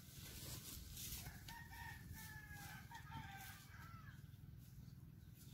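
A rooster crowing faintly, one crow that starts about a second in and lasts about two seconds, over a low steady rumble.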